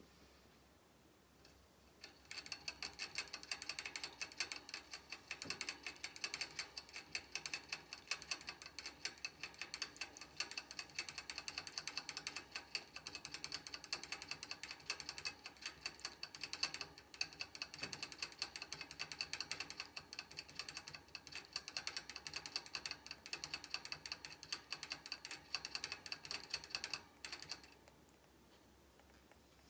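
Syrian hamster drinking from a cage water bottle, its licking on the metal spout making a fast, continuous clicking that starts about two seconds in and stops abruptly near the end.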